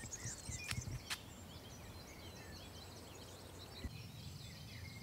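Faint birdsong: many small birds chirping and twittering over a low, uneven rumble, with two sharp clicks about a second in.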